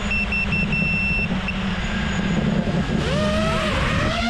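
FPV quadcopter's electric motors running at a steady buzz. About three seconds in, several motor pitches slide up and down across each other as the throttle changes, then settle into a steady high whine.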